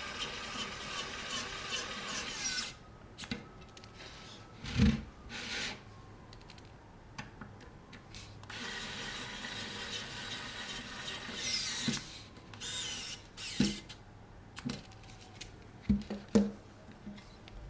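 Electric screwdriver with an extension bit running, driving small screws into the back of a camera body. It runs for the first few seconds and again for about four seconds midway, with a few light clicks and knocks between the runs.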